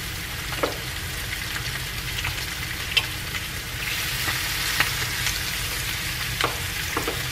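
Seasoned chicken thighs frying in hot grapeseed oil in a skillet, a steady sizzle, with a few light clicks of metal tongs against the pan as pieces are laid in.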